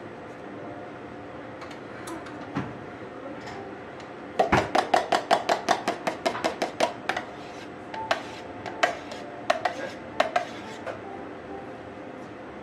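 A metal spoon clinking against a stainless steel jug. There is a quick, even run of taps, about eight a second, for about two and a half seconds, then a few scattered clinks.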